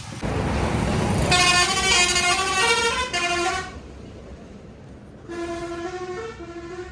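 A vehicle's engine running close by, then a multi-note musical horn sounding a short stepped tune twice, the second time shorter and quieter.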